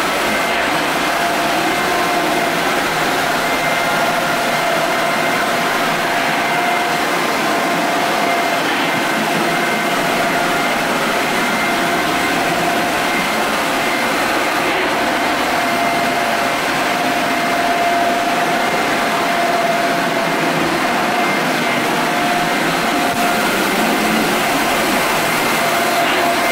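Electric floor-screening machine running steadily, its motor giving a constant whine over a dense mechanical rush.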